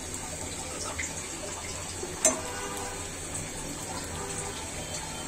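Lentil-batter piaju fritters deep-frying in hot oil in a black iron karahi: a steady sizzle with small crackles, and one sharp knock a little over two seconds in.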